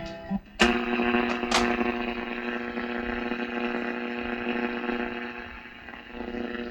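Tube AM radio playing through its speaker: a steady pitched tone with several overtones starts sharply about half a second in and slowly fades away over about six seconds.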